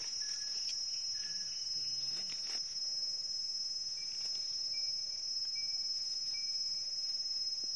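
Steady high-pitched shrill of insects, with four short high peeps about halfway through.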